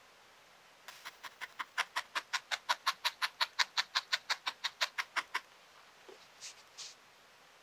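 Barbed felting needle stabbing repeatedly through wool into a foam felting pad: a fast, even run of crisp pokes, about six a second, for some four seconds. It is followed by two soft brushing sounds of fingers on the wool.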